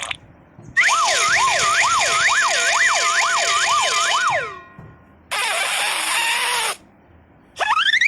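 Cartoon sound effects in sequence: a whistling tone that swoops up and down about twice a second for about three and a half seconds, then a hissing burst lasting about a second and a half, then near the end a whistle gliding upward.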